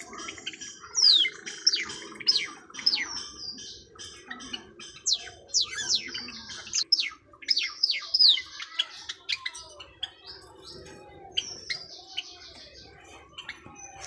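Small caged pet birds, a mixed aviary of budgerigars, Java sparrows, a lovebird and a cockatiel, chirping together. The chirps come as a busy run of quick, sharp, falling notes that thin out toward the end.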